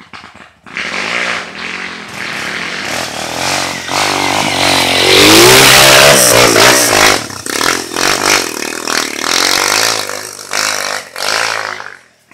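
Dirt bike engine revving hard under load as the bike climbs a steep dirt trail, rising in pitch and loudest as it passes close about five to seven seconds in, then dropping away just before the end.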